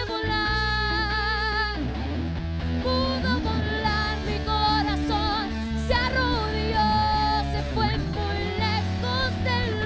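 Live band music: a woman singing a Spanish-language song over electric guitar and steady bass.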